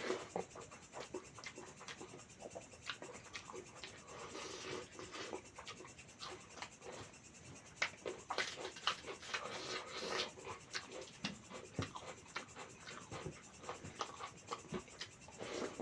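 Close-miked eating sounds: chewing and wet mouth clicks, a steady run of many small crackles and smacks.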